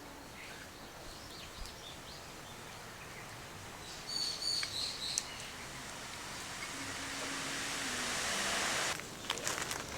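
Birds chirping over outdoor natural ambience, with a few short high calls about four seconds in. A hissing noise swells over the second half and cuts off suddenly about nine seconds in, followed by light clicks.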